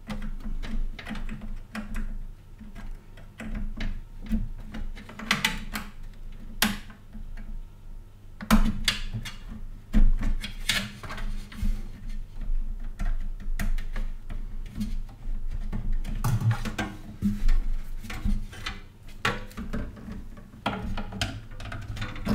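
Hands handling and pressing plastic-insulated SATA cables into place inside a metal PC case: irregular clicks, taps and rustles, over a steady low hum.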